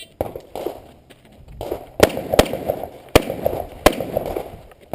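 A string of rifle shots fired in quick succession as a shooter runs a timed match stage: two fainter shots early, then four sharp, loud cracks between about two and four seconds in.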